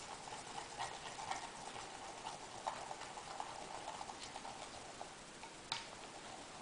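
A wooden stick stirring a thick glue and shaving-foam slime mixture in a glass bowl, with irregular light clicks of the stick against the glass. The mixture is thickening into slime as boric acid solution is worked in.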